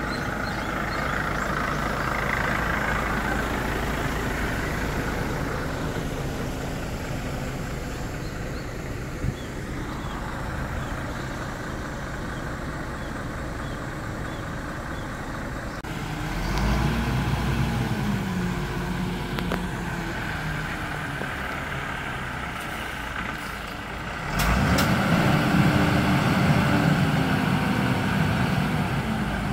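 Diesel engine of a Mitsubishi Fuso crane truck idling steadily. It revs up and settles back a little past halfway, then jumps to a louder, higher steady run near the end as the truck-mounted crane is worked to raise its boom.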